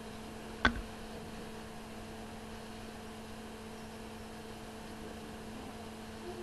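Steady electrical mains hum with a few even overtones, broken once by a single sharp knock about half a second in.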